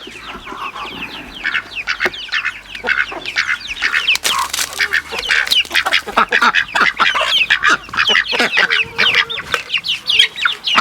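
A flock of chickens feeding on scattered food scraps, many birds clucking and squawking at once in short, overlapping calls, with scattered small clicks.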